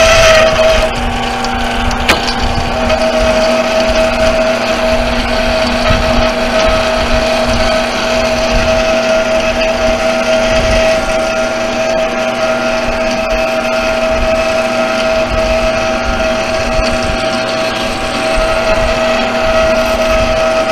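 Small bench metal lathe running and cutting a steel brake rotor hub: a steady machine whine over rumbling motor and gear noise. It is louder and harsher in the first second, and there is a sharp click about two seconds in.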